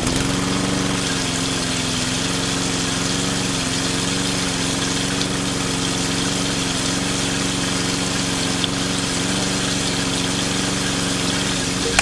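Small electric pump motor of a homemade miniature pressure washer running steadily with a constant hum, over the hiss of its spray gun jetting water.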